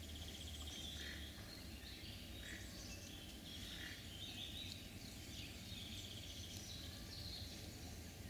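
Faint birdsong: several small birds chirping and warbling again and again, over a low steady background hum.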